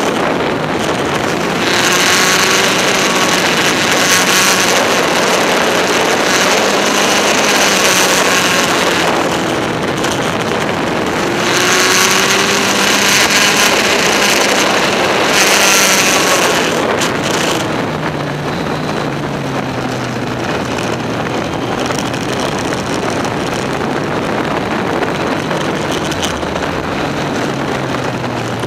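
Kawasaki Z1000SX motorcycle's inline-four engine running on the move, largely buried under rushing wind noise on the microphone. After about 17 seconds the wind eases and the engine note settles lower.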